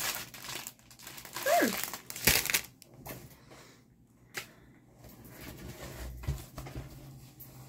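Plastic packaging crinkling as it is handled. It is loudest in the first three seconds, with a sharp crackle a little after two seconds, then settles into quieter rustling.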